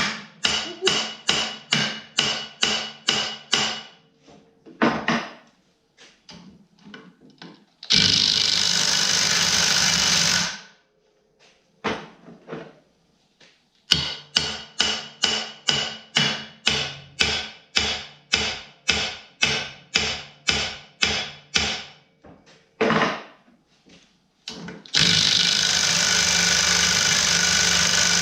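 Runs of steady hammer blows, about three a second, on the end of a clutch puller threaded into a snowmobile's primary clutch. Twice they give way to a burst of an impact wrench about 3 s long, all to break the stuck clutch loose from the crankshaft taper.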